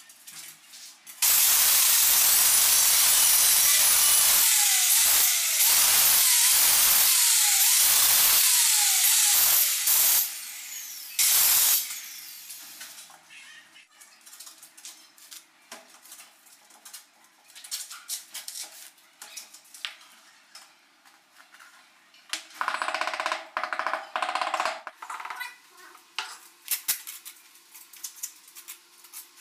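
Handheld electric tile cutter (angle-grinder type) cutting through ceramic tile for about nine seconds, its pitch dipping again and again as the disc bites, then a second short cut. Some seconds later a shorter, rasping burst.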